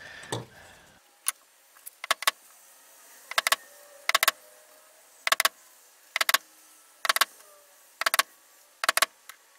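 Center punch pressed into the layout lines of a cast iron engine cylinder casting, marking the bolt-hole centres: about nine sharp metallic clicks, roughly one a second, each a quick cluster of snaps.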